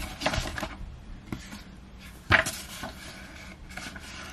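Paper and cardboard rustling and light clicks from album photo prints and their packaging being handled, with one sharper knock a little over two seconds in.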